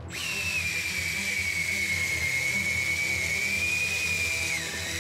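Electric fishing reel motor winding line: a steady high whine over a hiss that starts abruptly, then drops slightly in pitch near the end.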